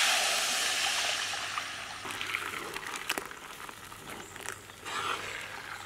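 Thin rice batter pouring into a hot kadai, a loud hiss as it hits the pan that fades over about two seconds. A few clicks and scrapes of a steel ladle against the pan follow.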